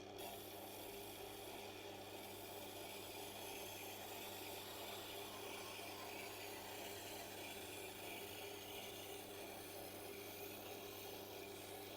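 Tormek sharpening machine running with a steady low hum while a chef knife is honed freehand on its leather honing wheel to strip the burr.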